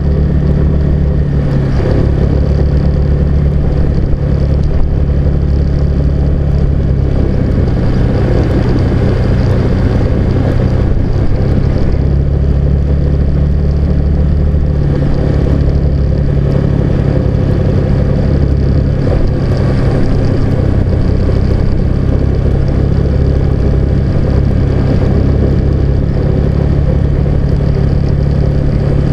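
Car engine and tyre noise of a car driving steadily, a constant low drone that barely changes in level.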